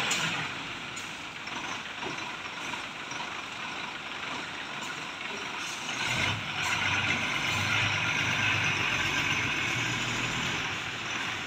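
Heavy goods lorry's diesel engine running. About six seconds in it grows louder, with a deeper low rumble coming in.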